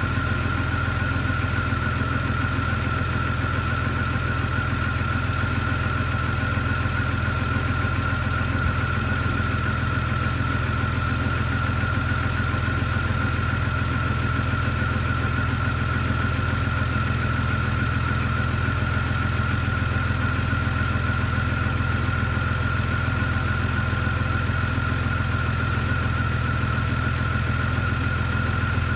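BMW E46 straight-six engine idling steadily, with a constant high-pitched tone over the low engine hum.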